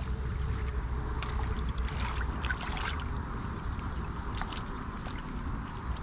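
Wet cast-net line being hauled in and coiled by hand while standing in water: small splashes and dripping ticks scattered through, over a steady low rumble.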